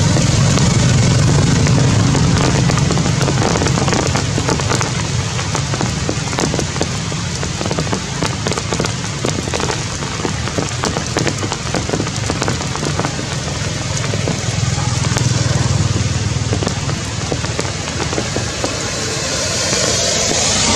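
Heavy rain falling on foliage: a loud, steady hiss with many small drop ticks throughout.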